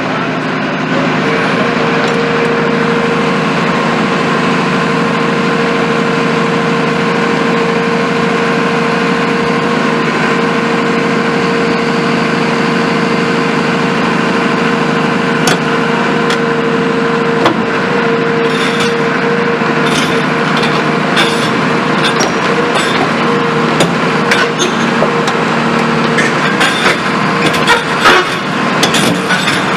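Caterpillar 340F crawler excavator running and travelling on its tracks: a steady engine and hydraulic drone with a held whine. From about halfway on, the steel track plates clank and creak more and more often, busiest near the end.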